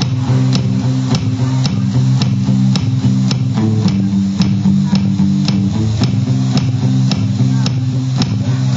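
Instrumental music: guitar and bass playing over a steady ticking beat, with no singing.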